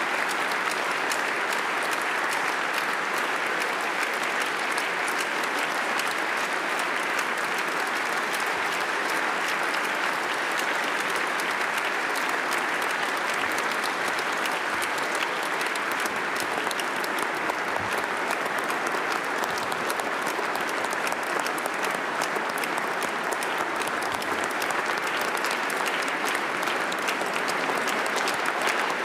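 Long, steady applause from a large audience clapping: an ovation at the end of a speech.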